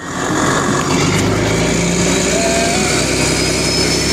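Ferry boat's engine running steadily under way, with a thin high whine slowly rising in pitch.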